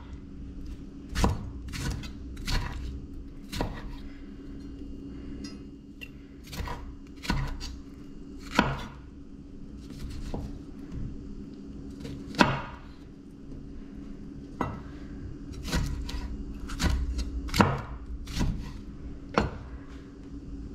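Chef's knife cutting through tomatoes and knocking on a wooden cutting board, in irregular strokes of roughly one a second.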